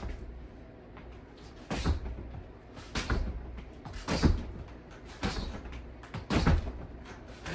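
A boxer's footwork on a wooden floor while slipping and dipping: five thuds about a second apart, each with a short hissing edge.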